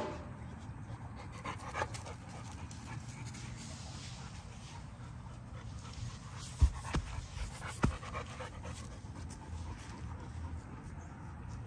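American bully dog panting steadily, with a few dull thumps a little past the middle.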